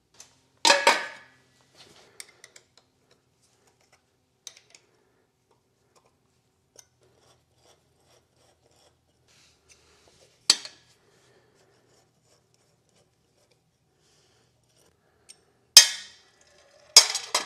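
Sharp metallic clinks of hand tools and bolts as a steel cover plate is unbolted from a diesel engine block: one about a second in, another about ten seconds in, and two louder ones close together near the end, with faint small clicks in between.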